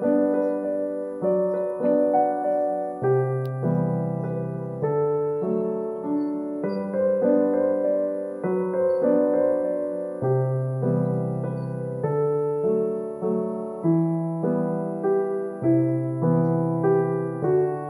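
Background piano music: a slow, gentle piece of notes and chords, each struck and left to fade before the next.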